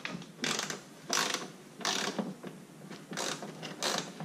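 Ratcheting Torx screwdriver with a T25 bit being worked back and forth on a screw, giving a short burst of ratchet clicks on each return stroke, about six bursts, a little more than one a second.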